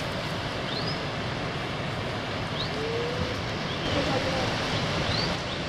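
Steady rushing outdoor noise, with a few brief high rising chirps and faint snatches of voices.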